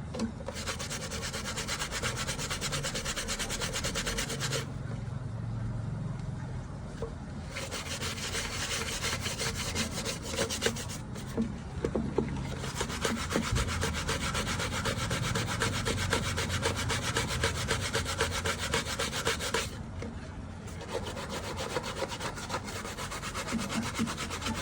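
Rapid back-and-forth scrubbing on a laptop screen while it is being cleaned, a dense run of fast rubbing strokes. It eases off briefly three times: about five, eleven and twenty seconds in.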